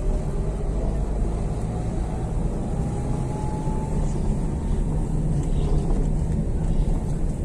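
Engine and road noise heard from inside a vehicle driving slowly along a paved street: a steady low rumble with a faint whine that rises slowly over the first few seconds.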